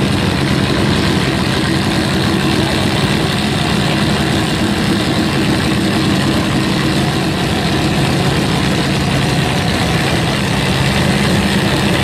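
Farm-stock pulling tractor's engine running steadily at an even pitch, with no revving.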